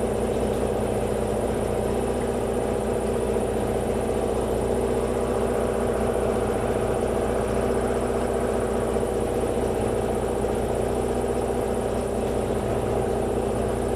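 Air compressor motor running steadily to pump up air pressure for tyre fitting, then cutting off abruptly at the end.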